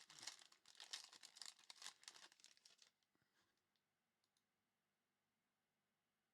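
Plastic trading-card pack wrapper crinkling and tearing for about three seconds, then near silence with a few faint clicks.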